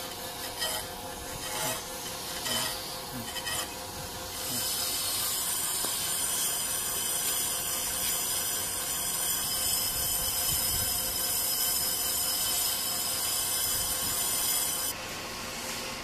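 Brake lathe resurfacing a brake drum: the cutting bit scrapes across the turning drum's friction surface in a steady, high rasping hiss from about four seconds in, stopping abruptly shortly before the end. Before that, a few short scrapes and clicks as the tool is set against the drum.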